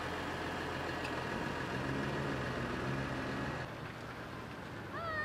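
Massey Ferguson 6480 tractor's diesel engine running steadily. About three and a half seconds in the sound cuts to a quieter engine. Near the end there is a short call that rises and falls in pitch.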